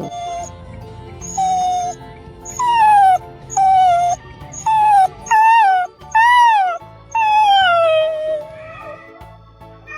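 A run of about eight short, whine-like animal cries, each rising slightly and then falling in pitch, the last one longer and sliding down, over steady background music.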